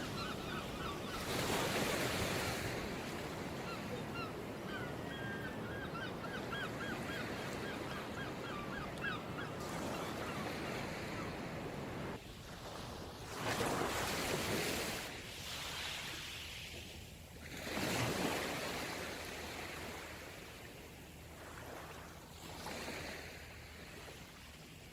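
Sea waves washing onto a shore, with swells rising and falling several times. A run of quick, repeated bird calls sounds over the surf for roughly the first ten seconds.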